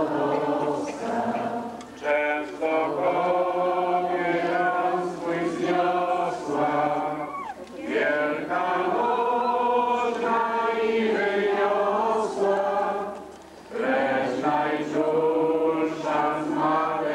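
A crowd of worshippers singing a hymn together, long held notes in phrases broken by short pauses every five or six seconds.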